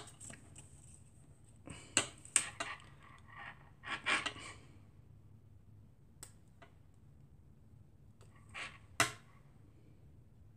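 Faint handling noises from paper crafting: a few sharp taps and short rustles as a paper card is moved and turned on a cutting mat and a small applicator bottle is dabbed onto it. They come in brief clusters about two, four and nine seconds in.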